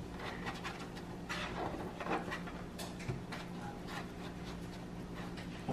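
Soft, faint pats and squishes of hands pressing and smoothing a breadcrumb-coated minced-meat cutlet flat on a wooden cutting board, over a steady low hum.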